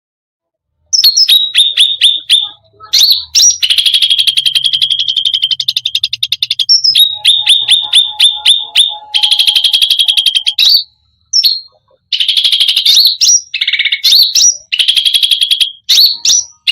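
Cucak rante songbird singing: after about a second of silence, bursts of rapid, evenly repeated high notes run into long rolling trills, with short pauses between phrases.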